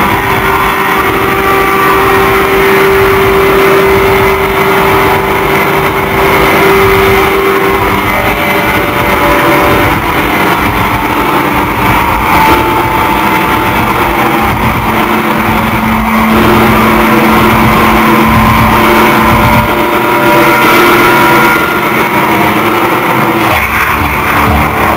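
Live aggrotech/industrial rock band playing at full volume: a dense, distorted wall of sound with long held synth notes over it.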